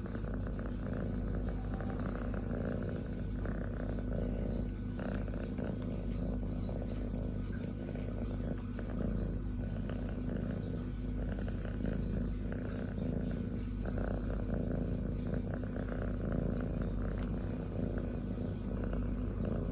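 A kitten purring steadily and continuously, with faint scattered clicks over the purr.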